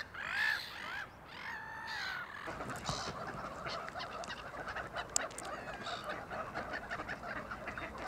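Gulls and ducks calling, with a few drawn-out, bending calls in the first two seconds, then a busy background of faint calls and small clicks.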